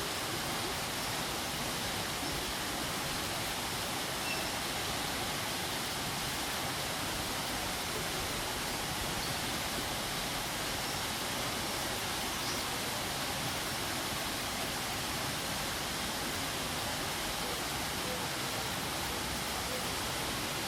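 Waterfall: a steady, even rush of falling water with no changes.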